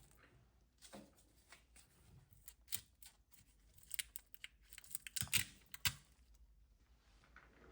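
Faint rustling and scattered small clicks, as of something being handled, with a few sharper clicks about four to six seconds in.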